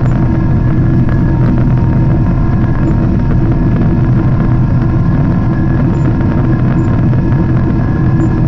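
Inside the cabin of a Boeing 777-300 airliner climbing out after takeoff: a loud, steady, low engine and airflow drone, with faint steady whines above it.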